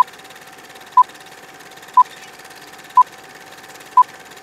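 Film-leader countdown sound effect: short beeps of the same pitch, one each second as the numbers count down, five in all. Under them runs a faint steady hum and hiss like an old film soundtrack.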